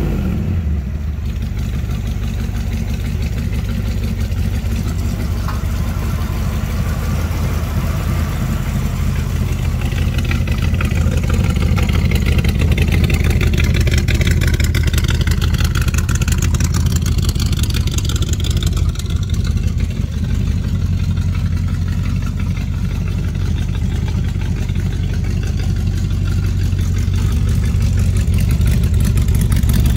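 Engine of a 1965 Shelby GT350 tribute idling steadily through its side-exit exhaust.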